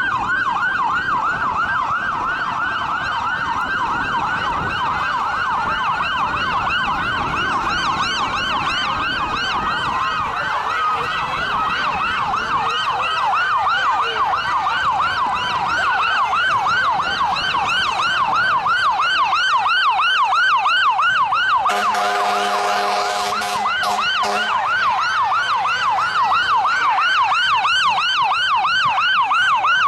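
Emergency-vehicle electronic siren on a fast yelp, sweeping up and down about three times a second without a break. About two-thirds of the way through, a horn blast lasts about three seconds, with a burst of hiss.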